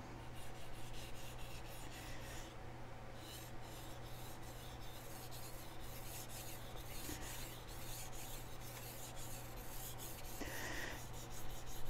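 Steel chef knife blade scraping back and forth across a wet Chosera whetstone in faint, quick, repeated strokes, over a steady low hum.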